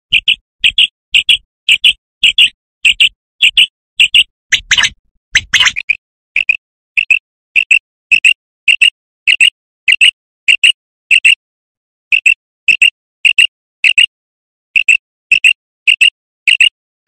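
Common quail calling: short, sharp notes repeated about three times a second in long runs with brief pauses. This is the recorded quail call hunters use to lure the birds. A louder, fuller burst comes about five seconds in.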